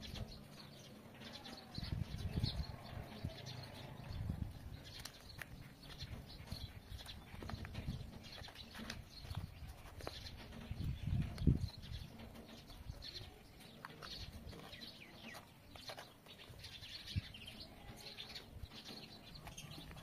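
Stiff paper rustling and creasing as an origami fidget toy is folded by hand, with faint crinkles and clicks. A few louder low-pitched sounds come about two, four and eleven seconds in.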